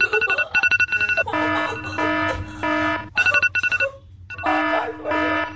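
Two electronic phone alarms ringing at once: one a rapid high beeping in quick groups, the other a lower repeating ringtone-like tone in roughly half-second bursts. Both pause briefly about four seconds in, then start again.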